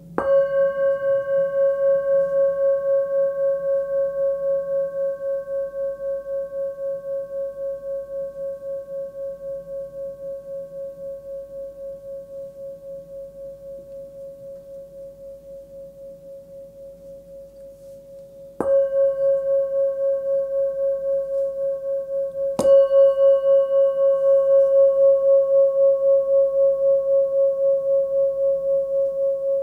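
Small 10.8 cm hand-forged singing bowl tuned to about 549 Hz (C#), struck three times: at the start, then about 19 and 23 seconds in. Each strike rings on as a long, slowly fading high tone with a few higher overtones and an even pulsing waver.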